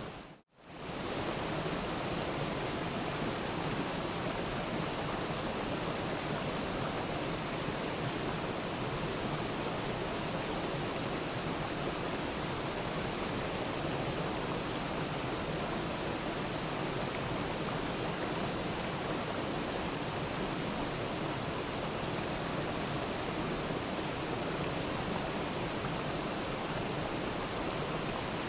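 Waterfall with water rushing steadily and evenly. It cuts out for a moment about half a second in and then comes straight back.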